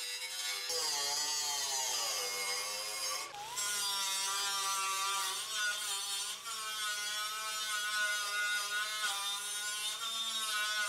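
Pneumatic right-angle die grinder with a small abrasive disc grinding on a steel radiator core support. Its whine sags in pitch as it is pressed into the metal, cuts out briefly a little over three seconds in, spins back up and runs on fairly steadily.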